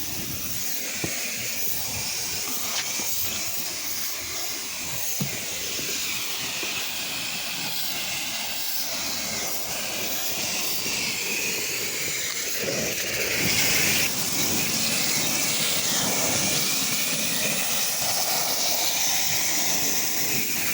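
Pressure washer spray hissing steadily as the water jet blasts the deck surface, growing louder about two-thirds of the way through.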